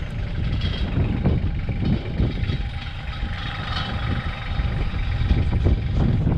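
Engine of heavy machinery running steadily with a low rumble.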